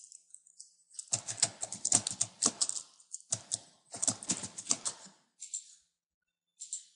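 Computer keyboard typing: quick runs of keystrokes broken by short pauses, tailing off into a few single key clicks near the end.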